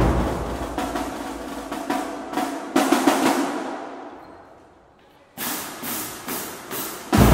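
Marching-band drumline of snare drums, tenor drums, bass drums and cymbals playing a percussion feature: the playing fades down over about five seconds to almost nothing, then a few light, sharp strikes, and the full line comes back in loudly just before the end.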